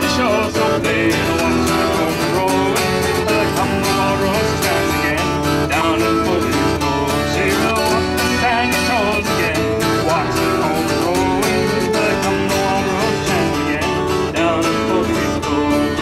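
Acoustic guitar strumming with a fiddle playing a folk tune together.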